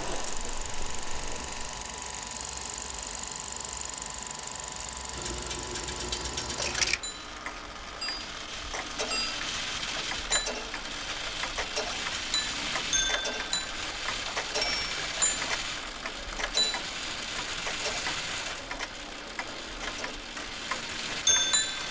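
A held tone for about the first seven seconds, then irregular mechanical ticks and clicks, like clockwork, each with a short high ringing note.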